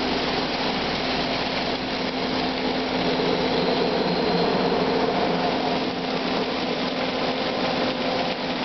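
Kason Vibroscreen vibratory screener and its air-classifier dust collector running together while they separate fluff and paper from shredded plastic: a steady mechanical hum with a constant low tone over dense machine noise.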